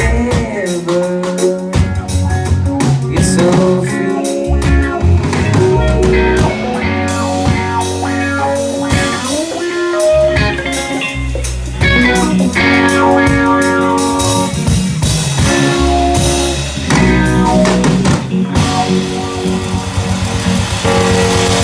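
A live reggae band playing an instrumental passage: an electric guitar lead with bending notes over bass and a drum kit. The sound grows fuller and brighter near the end.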